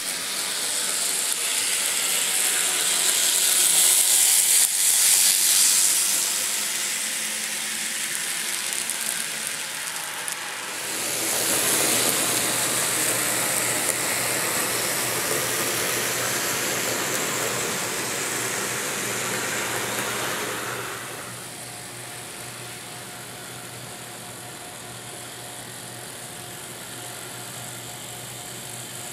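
N scale Bachmann Spectrum Santa Fe F7 model locomotive and passenger cars running on the track: a steady mechanical whirring and rattling of the small motor and wheels, swelling and fading as the train passes close by, quieter from about two-thirds of the way through.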